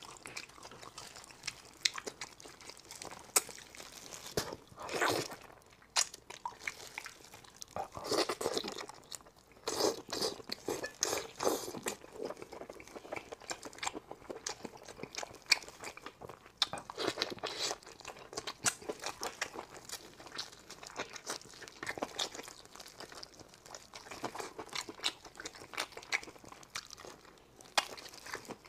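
Close-miked eating of spicy braised anglerfish: wet chewing and lip smacking with many short, crisp crunches at an irregular pace. The wet sounds of gloved hands tearing the saucy fish apart come through between bites.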